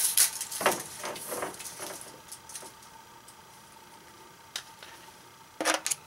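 Light metallic clicks and rattles of tools and small parts being handled: a cluster in the first couple of seconds that dies away, a single click, then a short louder rattle near the end.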